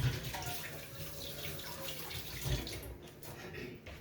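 Kitchen tap running as a piece of ginger root is rinsed under the stream; the water stops about three seconds in.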